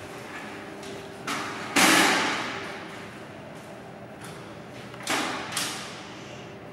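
Heavy metal bangs on a Strv 103C tank's hull as men work on it: a light knock, then a loud bang about two seconds in that echoes away over about a second, then two lighter bangs close together near the end.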